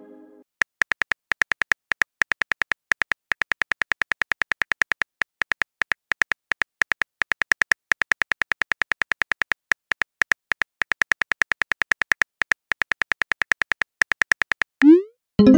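Phone-keyboard typing sound effect: a quick, even run of tap clicks, several a second, as a text message is typed out letter by letter. Near the end a rising swoosh and a short synth chime mark the message being sent.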